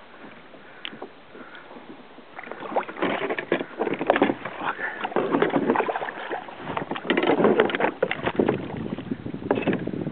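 Water splashing and sloshing against a plastic kayak hull, with irregular knocks and clatter from handling the rod and reel as a fish is reeled in; it grows much busier about two and a half seconds in.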